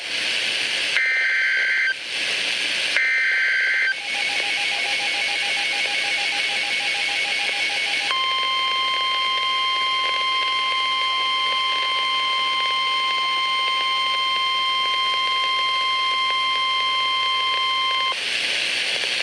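NOAA Weather Radio Emergency Alert System signal heard through a weather radio receiver. Two short bursts of screeching SAME digital header data come first, then a few seconds of radio static. After that the steady 1050 Hz alert tone sounds for about ten seconds, marking the start of a severe thunderstorm warning, and it cuts off near the end, leaving static hiss.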